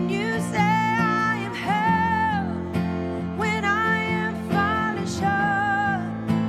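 A woman singing a slow song live, with acoustic guitar and bowed cello accompanying her. Her sung phrases rise and fall over sustained low cello notes.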